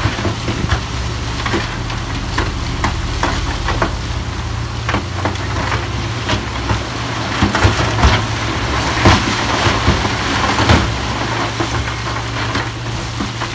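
Heavy earthmoving machine's diesel engine running steadily under a dense crackling and clatter, with two sharper knocks in the second half.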